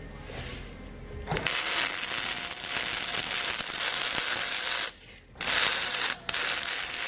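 Aluminium being welded: a loud steady hiss of the arc starts about a second in and runs for about three and a half seconds, then comes back in two more bursts with short breaks between them.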